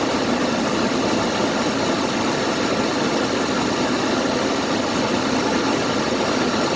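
Vehicle engine idling steadily, just started and not yet warmed up.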